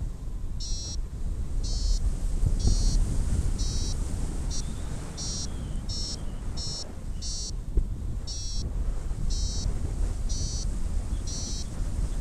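Paragliding variometer beeping: short high beeps about once a second, the climb tone that signals the glider is rising in lift. Wind rushes over the microphone underneath.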